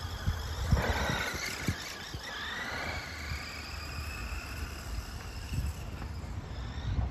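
Electric motor and gears of a mini HBX RC monster truck whining as it drives, the pitch rising and falling with the throttle, with a brief rush of noise about a second in.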